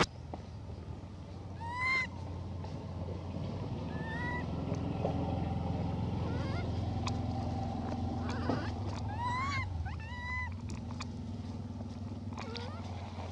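A young macaque's short, high calls, about six of them, each rising and then falling in pitch, the loudest about two seconds in: food-begging calls. A steady low hum runs underneath.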